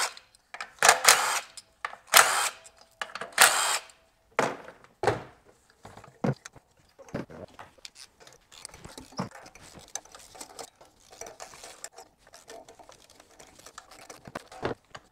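Cordless DeWalt driver spinning out ignition coil bolts, three short bursts in the first four seconds. After that, scattered clicks and scrapes of a hand ratchet and tools working on the spark plugs.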